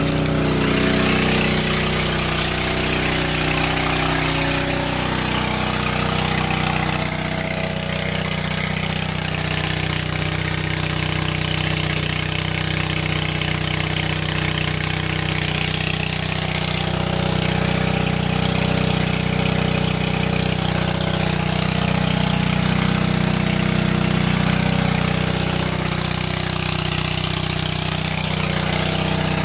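Old flathead Honda 2.2 hp single-cylinder engine running at a steady speed, belt-driving a marine 24-volt alternator under light load.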